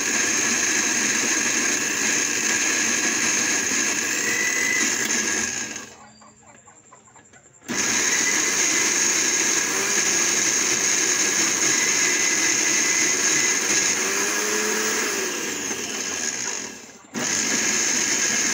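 Electric mixer-grinder motor running, grinding onion, green chillies, tomato, garlic and ginger into a wet chutney paste in a small glass jar. It stops about six seconds in, starts again under two seconds later, and cuts out for a moment near the end.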